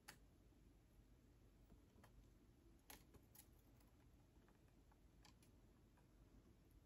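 Near silence: faint room tone with a handful of brief, faint clicks from hands working fishing line through a cardboard coffee box.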